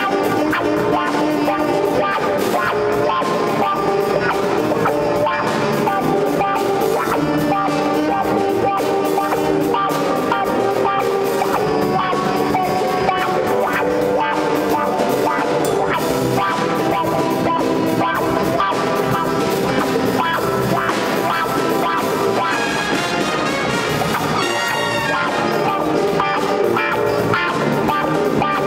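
Live jazz ensemble playing a funk tune: a horn section of saxophones and brass over electric guitars, piano and drum kit, at a steady loud level.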